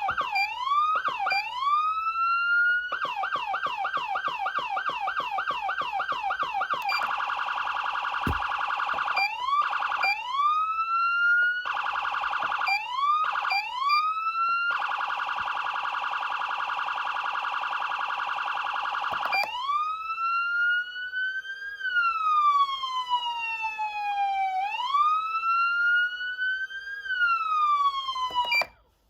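Federal Signal SSP3000B electronic siren amplifier cycling through its tones: a fast sweeping yelp, short rising whoops, a steady buzzing horn tone twice, then a slow wail rising and falling twice before cutting off abruptly near the end.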